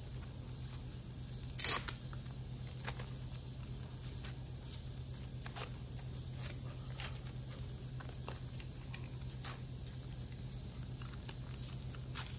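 Hook-and-loop Velcro strap being handled and threaded through a plastic harness saddle: short rasping rips and small clicks, the loudest about two seconds in, over a steady low hum.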